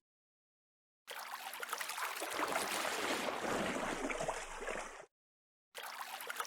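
Water gurgling and trickling, in two stretches cut off sharply: about four seconds starting a second in, then a short burst near the end.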